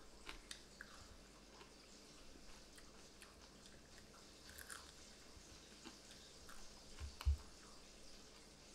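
Chewing and crunching of crispy deep-fried whole yellow bass in Cajun fish-fry batter, faint small crackles scattered throughout. A single low thump a little past seven seconds in is the loudest sound.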